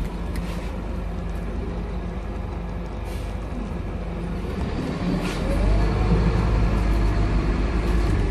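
On board a Scania K230UB bus under way: its engine runs steadily with road and body noise. About five seconds in it gets louder as the engine pulls harder. A few short clicks or hisses come in between.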